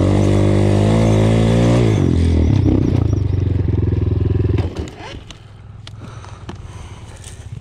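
RXF 150 pit bike's single-cylinder four-stroke engine revving hard at a steady high pitch for about two seconds, then dropping in pitch and running on with a fast pulsing beat before cutting away sharply about four and a half seconds in. Light clatter and clicks follow.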